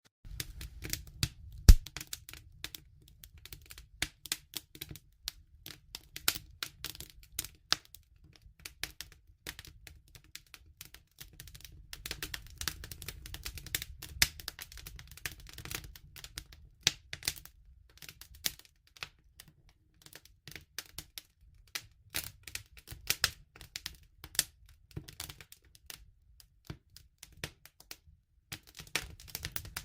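Wood fire crackling: irregular sharp snaps and pops over a low steady rumble, with one loud pop near the start.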